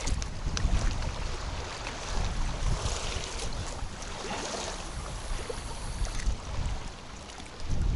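Strong wind buffeting the microphone: a steady rushing hiss over an uneven, gusty low rumble.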